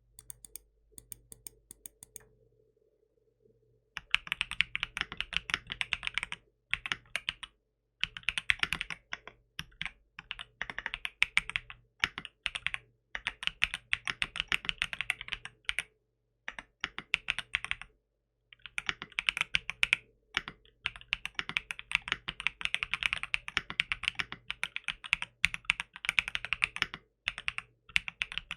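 Typing on a 75% aluminium mechanical keyboard with tactile switches: fast, clacky keystrokes in runs of a few seconds broken by short pauses. A few scattered light presses come first, and steady typing starts about four seconds in.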